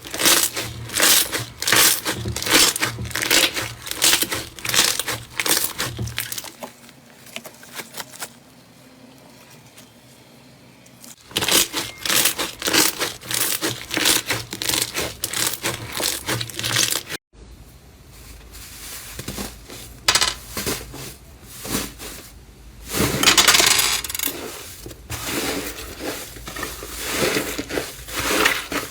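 Slime being squeezed and pressed by hand, making runs of rapid sticky clicks, pops and crackles. It goes in separate stretches, with a quieter pause between about 6 and 11 seconds in and an abrupt cut about 17 seconds in.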